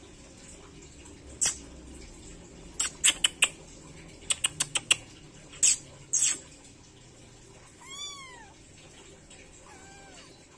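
Kitten mewing: one high, falling mew about eight seconds in and a fainter one near the end. Before them, several quick groups of short, sharp clicks, the loudest sounds here.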